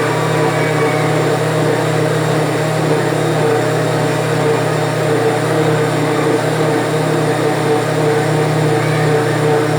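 Kitchen blender motor running steadily at one constant speed, churning used cooking oil, detergent and liquid caustic soda into soap.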